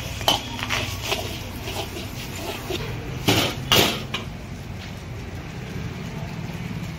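Metal cooking utensils knocking, most likely a spatula striking a wok: a few light clicks and two louder strikes about halfway through. A steady low rumble runs underneath.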